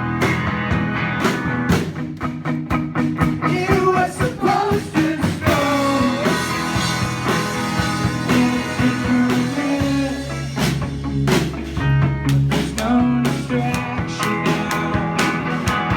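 Rock music with guitar, drums and singing, played full and steady, with a heavier low bass part about ten seconds in.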